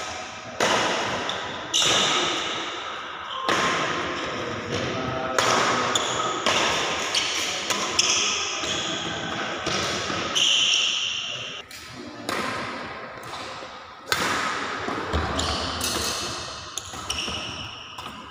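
Badminton rackets striking a shuttlecock in a rally, sharp smacks every second or two that echo around a large hall, with voices calling on the court.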